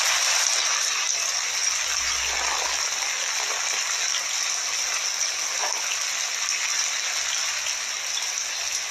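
Steady, even hiss like heavy rain, brighter in the high range, unbroken and without music or voices.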